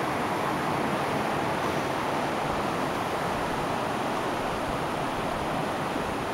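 Steady rushing of a mountain river running past its bank.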